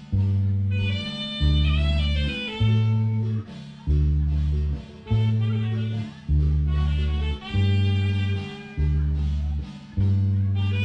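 Instrumental dance music: a guitar melody over a bass line that strikes a long note about every second.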